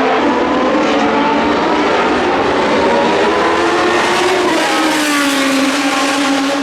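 Several historic Formula 1 race car engines running hard at once, loud, their pitches rising and falling; one dips and climbs again about four to five seconds in.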